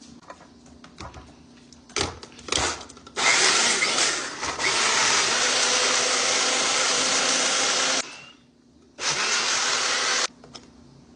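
Portable personal blender running on chunks of watermelon, ginger and pineapple. After a few clicks and knocks, the motor runs for about five seconds and stops. It then runs again in a shorter burst of just over a second near the end.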